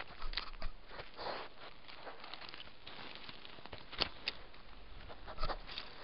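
A European badger nosing at a trail camera, its snout and fur rubbing and scraping against the casing right at the microphone: irregular scratchy rustles and sharp clicks, with a sharp click about four seconds in and a louder scrape a little after five seconds.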